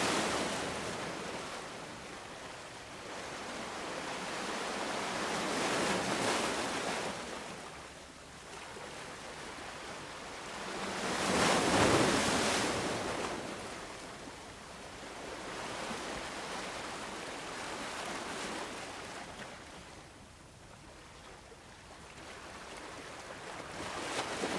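Small ocean waves breaking and washing on the shore, swelling and ebbing every few seconds, with the largest wave about halfway through.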